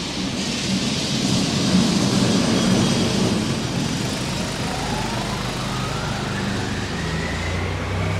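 Motor vehicle going past close by on the street, its engine running under a rush of road noise that is loudest a couple of seconds in. A whine rises steadily in pitch over the second half.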